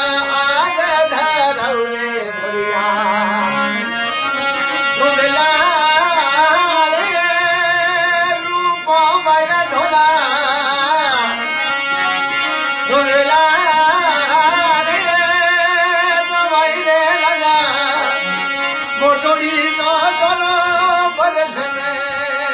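Rajasthani folk music: a wavering, ornamented melody over a steady drone.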